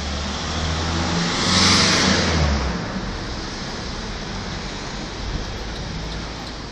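A motor vehicle drives past close by: engine and tyre noise swell to a peak about two seconds in and fade, leaving steady street traffic noise.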